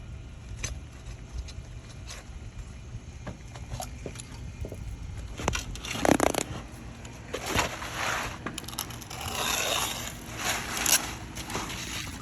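Asphalt shingles crunching and scraping in irregular bursts, louder in the second half, with scattered clicks and a steady low rumble underneath.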